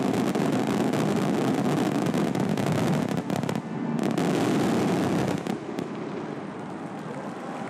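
Fireworks display: a dense, continuous crackle of many small bursts from a rapid barrage. It breaks off briefly about three and a half seconds in, resumes, then falls much quieter about five and a half seconds in.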